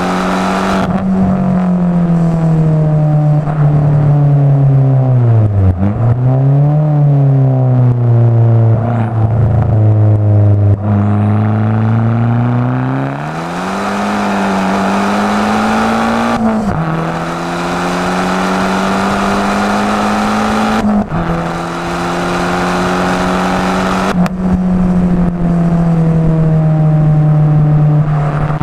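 Abarth 500 esseesse's turbocharged four-cylinder engine, fitted with a Garrett 1446 turbo and an aftermarket exhaust, pulling on the road, its note rising and dropping sharply several times as it shifts gears.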